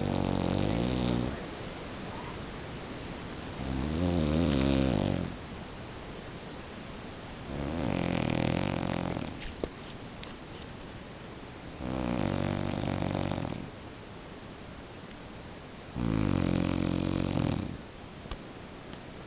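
A man snoring in his sleep: five long snores, about one every four seconds, each lasting a second and a half to two seconds.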